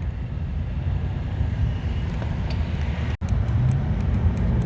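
Steady low rumble of car and traffic noise. Just after three seconds the sound cuts out for a split second, and a steady engine-like hum follows.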